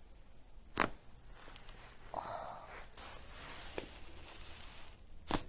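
Joints cracking during a chiropractic neck and back adjustment: short sharp pops about a second in and just before the end, with a fainter one in between and soft rustling between them.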